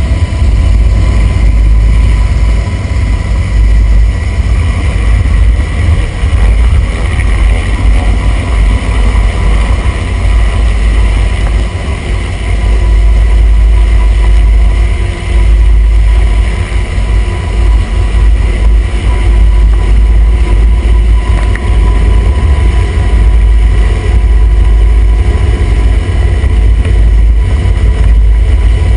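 UH-60 Black Hawk helicopter running loud and close: a heavy low rotor rumble under a steady high turbine whine.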